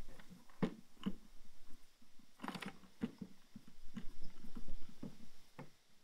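Wooden block being turned by hand down a threaded 5/16-inch eye bolt on top of a plastic bucket: scattered light clicks and scrapes, with a longer scrape about two and a half seconds in.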